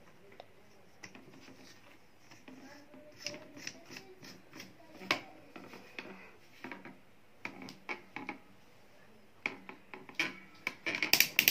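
Light clicks and rattles of a stand fan's rear wire guard being handled and seated onto the motor housing, metal wires knocking against the plastic. The clicks come scattered at first, then thicker and louder near the end.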